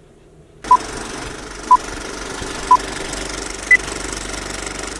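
Old film projector sound effect: a steady mechanical rattle and hiss. Over it, four short beeps sound a second apart, the first three on one pitch and the fourth higher, like a countdown.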